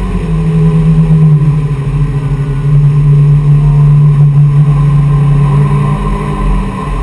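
Yamaha AR240 jet boat's engines running at speed: a loud, low, steady drone that shifts pitch a couple of times.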